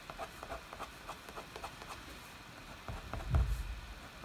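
Scissor-blade point scratching quick strokes into a wax-crayon scratch-art sheet: a rapid run of short, light scratches. A low thud about three seconds in.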